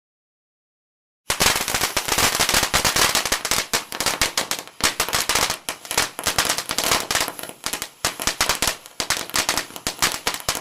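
Fireworks going off as a dense, rapid string of firecracker-like cracks, starting abruptly about a second in, thinning slightly towards the end and cutting off suddenly.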